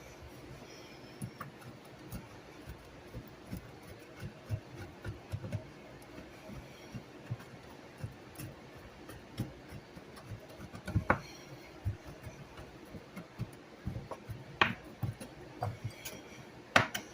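Knife chopping bacon on a cutting board: a run of irregular light taps, with a few sharper, louder knocks in the second half.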